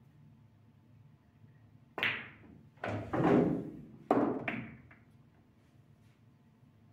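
Pool shot: a sharp click of cue tip and balls about two seconds in, then a pocketed ball knocking into the pocket and rumbling through the table's ball-return channel, with another knock about a second later as it comes to rest.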